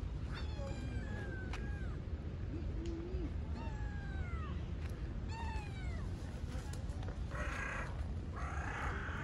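Cats meowing: about six short meows that fall in pitch over the first six seconds. Near the end come three short, scratchy bursts of noise.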